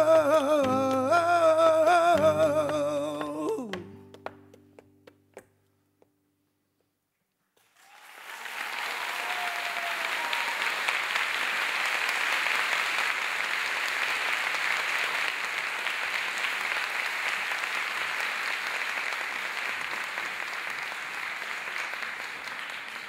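A flamenco singer holds a final wavering note over sustained guitar, which ends about three and a half seconds in. A few sharp knocks follow. After a short silence, an audience applauds steadily until near the end.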